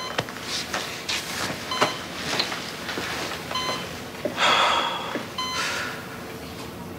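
Hospital patient monitor beeping evenly, one short electronic beep about every second and three quarters. Soft rustling noises fall between the beeps, with a louder rush of noise about four and a half seconds in.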